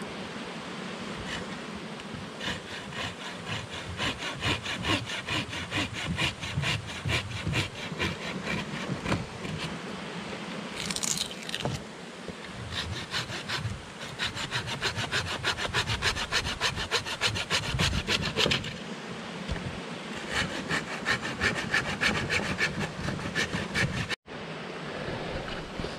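Hand saw cutting through dead wood with quick, even back-and-forth strokes, in three spells broken by short pauses.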